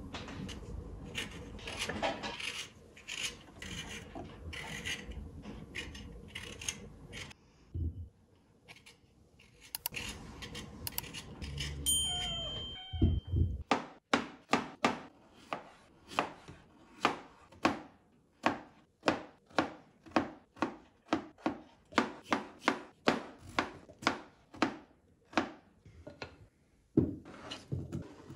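Raw potato scraped with a Y-shaped vegetable peeler in short rasping strokes, then sliced into fries with a serrated knife on a plastic cutting board. In the second half the blade knocks the board at a steady rhythm of about two cuts a second.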